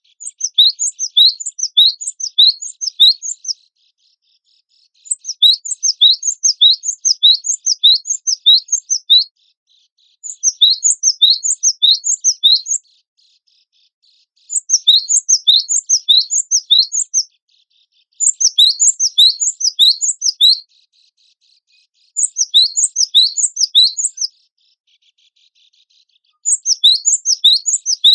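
Cinereous tit (gelatik batu) singing in repeated bouts of quick, sharp, high downslurred notes, about four a second. Each phrase lasts two to four seconds, with short pauses between them, about seven times over.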